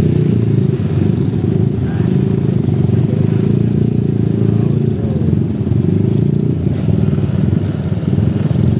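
Motorcycle engines running at low speed in a slow-moving convoy: a loud, steady low rumble.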